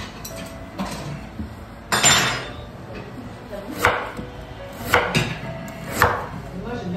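Kitchen knife slicing through ginger onto a wooden cutting board: sharp knocks of the blade against the board, the loudest about two seconds in, then three more about a second apart.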